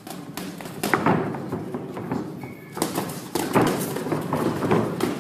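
Boxing sparring: padded gloves landing punches in a string of sharp smacks, the heaviest about a second in and several close together past the halfway point.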